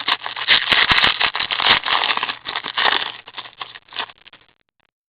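Trading cards and their pack wrappers being handled close to the microphone: a dense run of rustling, crinkling and small clicks that stops about four and a half seconds in.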